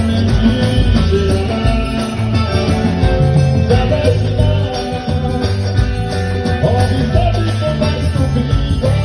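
Forró music played live by a band, with a steady beat and bass under a sustained melody.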